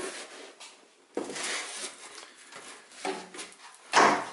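Rubbing and scraping handling noises on a model airplane fuselage, ending with a louder scrape about four seconds in as a snug tube is pushed into a socket in the fuselage.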